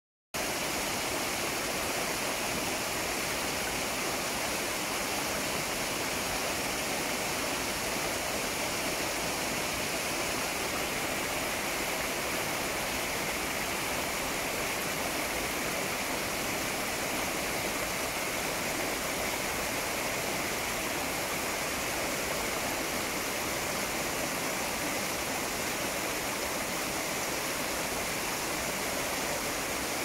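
Waterfall rushing steadily: an even, unbroken sound of water falling onto rocks.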